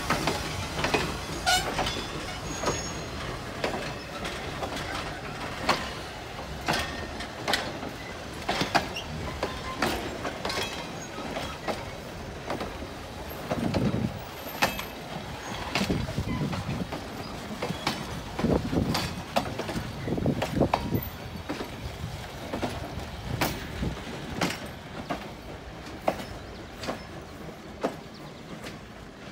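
Passenger coaches and a caboose rolling slowly past on jointed track: wheels clicking and clanking irregularly over the rail joints, with a few short, wavering low squeals about halfway through.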